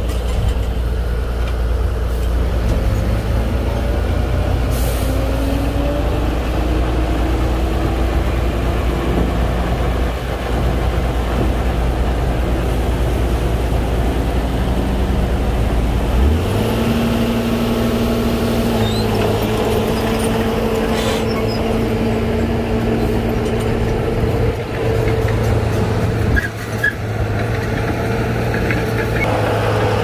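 Heavy diesel engines of earthmoving machinery, a Komatsu bulldozer working alongside dump trucks, running under load with a deep steady drone. About halfway through the engine note rises sharply and stays higher, and short hisses of air break in a couple of times.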